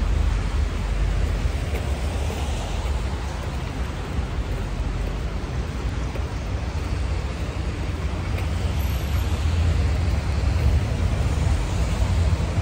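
Steady road traffic noise with a heavy low rumble, with cars swelling past a couple of times.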